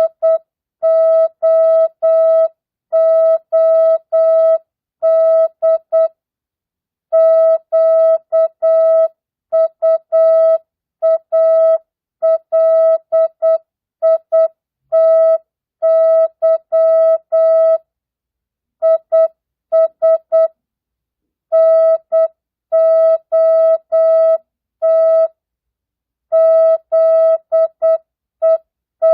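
Morse code (CW) practice tone keyed at 8 words per minute, non-Farnsworth spacing: a single steady beep switched on and off in dots and dashes, with longer pauses between words.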